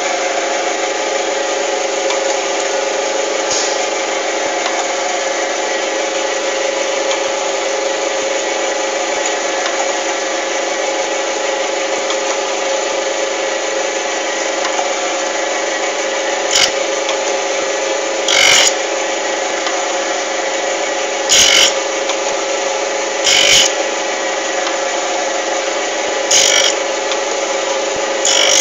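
Jones & Shipman surface grinder running with a steady machine hum. From about halfway on come about six short, louder noisy bursts, two to three seconds apart.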